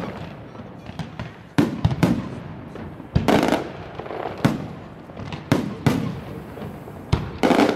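Fireworks display: aerial shells bursting, a sharp bang about every second at irregular spacing, some followed by a rolling echo and crackle.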